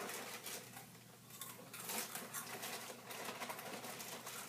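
Crackly rustling and crunching of snack packaging, a bag and a box dug into by hand while eating, in a quick irregular patter of small crackles.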